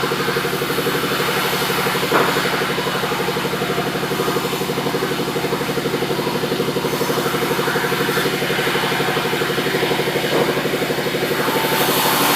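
Sawmill machinery running steadily while sengon wood is sawn: a steady engine drone with a fast, even pulse, and a light knock about two seconds in and another about ten seconds in.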